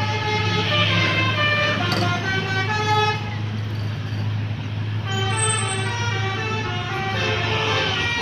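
A bus's Basuri telolet horn playing a tune of short stepped notes in two phrases, with a pause of about two seconds between them. A steady low engine hum runs underneath.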